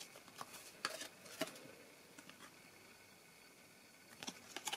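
Trading cards being handled and swapped between the fingers: soft clicks and rustles of card stock, in a cluster over the first second and a half and another near the end.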